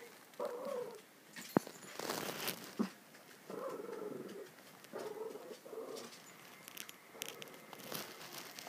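Small Shih Tzu–Pekingese mix dog grumbling and whining in a series of short vocal bursts, with a sharp click about one and a half seconds in.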